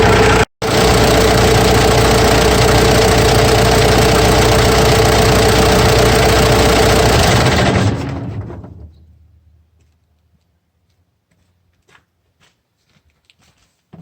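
Cummins B3.3 four-cylinder diesel idling steadily on its new fuel filter after the fuel system has been bled, then shut off and running down to a stop over about two seconds, leaving near silence with a few faint ticks.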